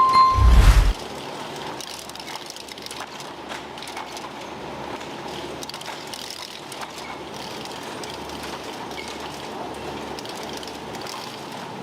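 Egg grading and packing machinery running steadily with a continuous rattle of small clicks. A short high beep and a low thump come right at the start and are the loudest sounds.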